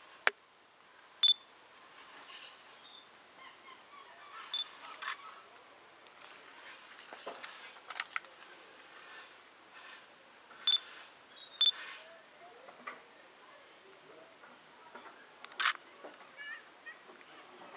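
About eight sharp clicks at irregular intervals, some with a brief high-pitched ping, over a faint outdoor background.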